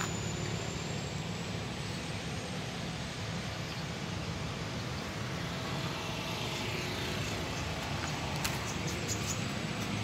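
Turbocharged diesel engine of a homemade rice harvester running steadily at an even speed.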